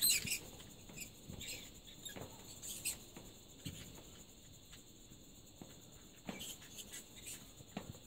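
A flock of caged budgerigars chirping: short, high squeaky calls, busiest in the first three seconds, then sparser.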